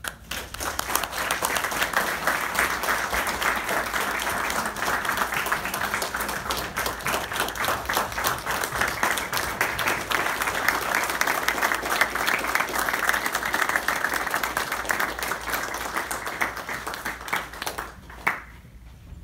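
Audience clapping and applauding for about eighteen seconds, dying away near the end with one last clap.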